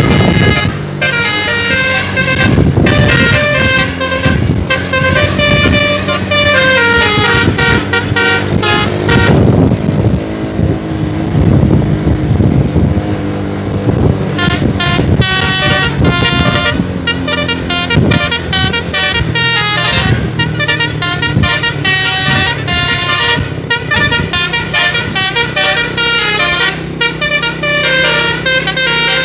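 Bus telolet musical air horn playing a tune in quick stepped notes, over the bus's running engine. The horn breaks off for a few seconds about ten seconds in, then starts again.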